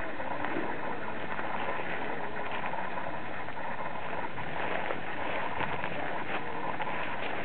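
Footsteps crunching through dry fallen leaves, a few soft irregular crunches over a steady background hiss.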